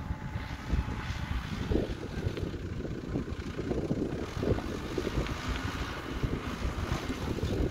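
Diesel engine of a Mecalac 12 MXT excavator-loader running steadily while working, with wind buffeting the microphone in uneven rumbling gusts.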